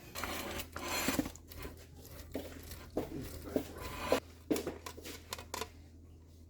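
Kitchen prep handling: irregular rubbing, rustling and short scraping sounds with light taps, over a low steady hum.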